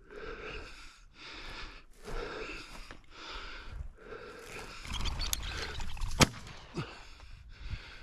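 A person breathing hard and rhythmically close to the microphone, about one breath a second, with a single sharp click a little after six seconds.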